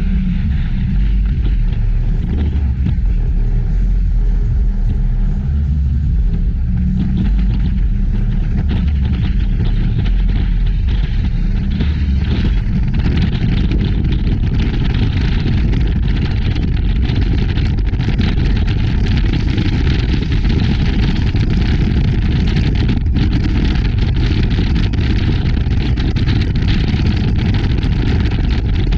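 Speedboat running at speed, a steady low engine rumble under the rush of wind and water against the hull. The wind and spray hiss grows louder about seven seconds in.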